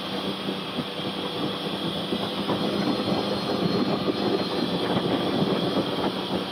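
A 340 snowmobile's two-stroke engine running at a steady cruise while riding along a packed trail. A constant drone is mixed with track and running noise, holding even throughout.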